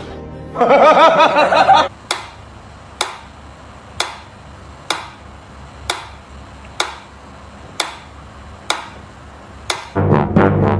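A brief wavering, pitched call, then nine sharp knocks, evenly spaced about once a second.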